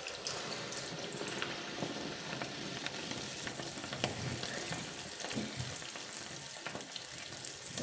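Sel roti batter deep-frying in hot oil in a kadai: a steady sizzle with many small crackling pops.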